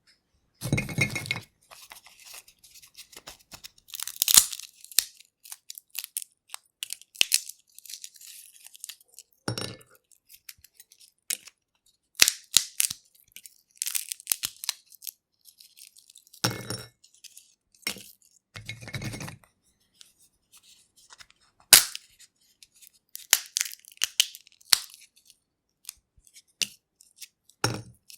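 Peanut shells being cracked and peeled by hand: irregular sharp cracks and dry crackling as the shells break open and the papery skins are rubbed off, with a few louder crunches among the smaller snaps and brief pauses between.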